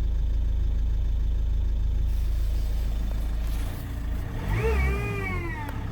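Ford Mondeo mk4 2.0 TDCi diesel engine running with a steady low drone, the sound the owner calls strange in a car that has gone into limp mode with no fault light. About four seconds in the drone changes, and a short tone rises and falls.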